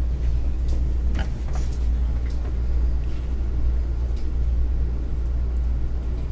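Steady low rumble, with a few faint knocks and rustles as several people sit down on chairs.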